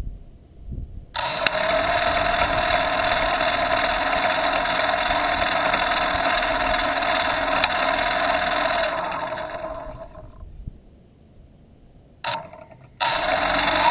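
Brushless motors and propellers of an X525 quadcopter spinning up with a steady whine, heard through a camera mounted on its frame: they start suddenly about a second in, die away after about eight seconds, give a short burst near twelve seconds and start again near the end. The craft does not lift off, which the owner puts down to the motors being wired up wrong to the flight controller.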